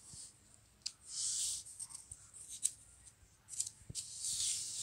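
Sheets of drawing paper in a clip folder being handled, with short bursts of crisp paper rustle and a few light taps.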